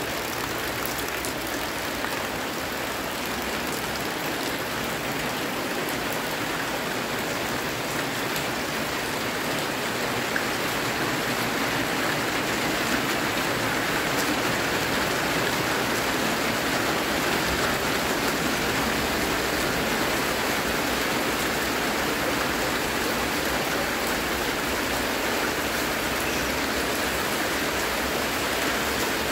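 Steady rain falling on wet ground and puddles: an even hiss of drops that grows a little louder about halfway through.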